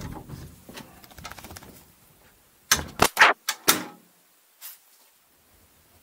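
A puppy nosing and brushing against a camera on the floor: a quick run of four or five loud scuffs and knocks about three seconds in, after lighter scattered taps.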